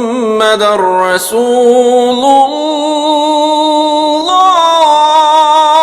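A solo voice chanting in long, held notes that waver and slide between pitches, in the style of Islamic religious chant. The pitch steps up about four seconds in.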